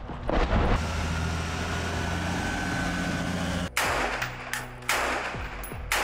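Gunfire, most likely from rifles. A steady rushing noise breaks off about two-thirds of the way in into a sudden loud burst of shots, and further bursts follow near the end.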